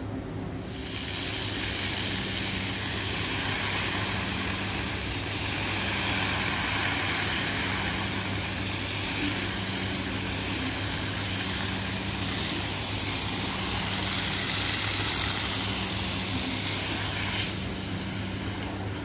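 A machine's motor hums steadily under a loud rushing hiss that swells in just under a second in and falls away near the end, the kind of sound a pressure washer or wet-cleaning machine makes while washing a rug.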